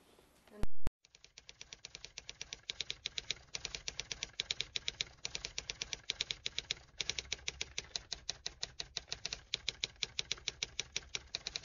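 Typewriter keys clacking in a rapid run, several strikes a second, pausing briefly twice. A short loud blip comes just before the typing starts.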